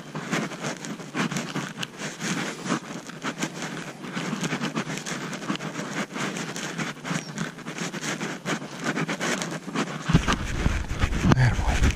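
A horse's hooves going through dry fallen leaves on a woodland track, with an uneven crunching and rustling of leaves and tack. About ten seconds in, a low wind rumble on the microphone comes in.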